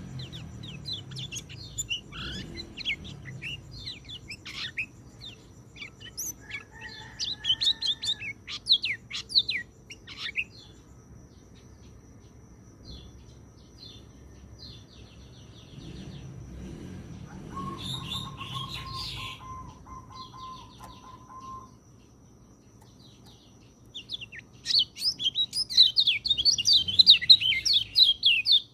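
Orange-headed thrush (peleci) singing: runs of quick, high, varied chirping phrases, a quieter gap in the middle, and a louder, denser burst of song near the end.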